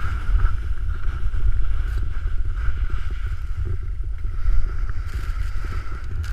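Wind buffeting the microphone of a camera carried downhill on skis: a loud, steady low rumble from the rush of air at speed. Near the end a hiss rises over it, skis carving on snow.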